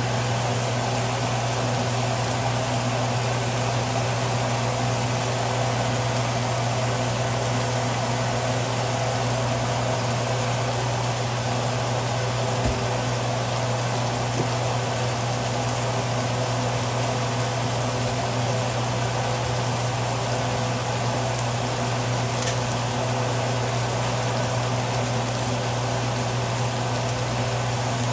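Eel pieces frying in a cast-iron skillet: a steady sizzle over a steady low hum, with a faint click about halfway through.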